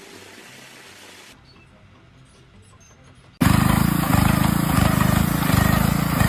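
Faint background noise, then about three and a half seconds in, a loud engine-driven machine suddenly comes in, running with a heavy, pulsing throb.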